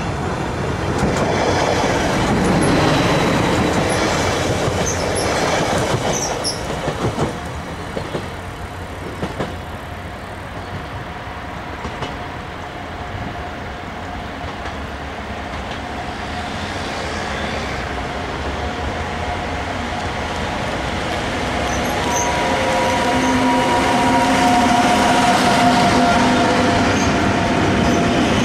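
A loud rumble with brief high squeaks dies down over the first several seconds. Then a Railion freight train approaches and passes close, its noise building through the second half, with a steady whine as the locomotive goes by about three-quarters of the way in, then the wagons rolling past.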